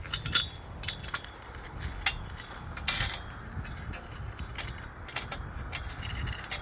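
Scattered clicks and knocks of steel high-tunnel arch pipes and fittings being handled and slid together, over a steady low rumble.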